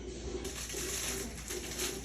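Low, repeated cooing of a bird, with a steady hiss that comes in about half a second in.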